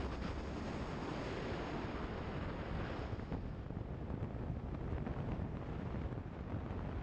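Steady wind rush on the microphone of a camera riding on an adventure motorcycle at road speed, with the bike's engine and tyre noise blended in underneath.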